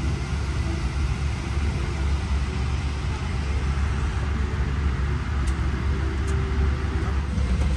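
Steady low rumble of cabin noise aboard a Boeing 777-200ER, even and unbroken, with a couple of faint ticks near the end.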